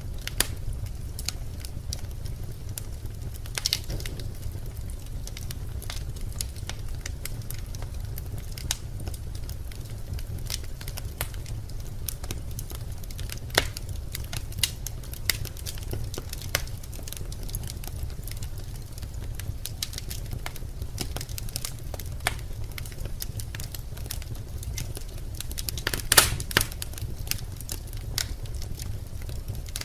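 Birch logs burning in a fireplace, crackling with irregular sharp pops over a low steady rumble of the flames. A quick cluster of louder pops comes near the end.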